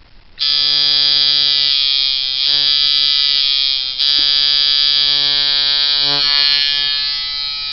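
Sunskin Evolution coil tattoo machine, set up as a long-stroke liner at 6.5 volts, switched on and buzzing steadily at about 143 cycles a second and 49% duty. The pitch sags briefly about two seconds in, there is a short break about four seconds in, and it runs a little quieter near the end.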